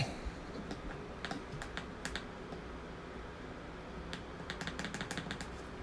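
Scattered light clicks of a rechargeable USB desk fan's power button being pressed again and again, in a few quick runs, with no motor sound following: the fan won't start because its battery is dead.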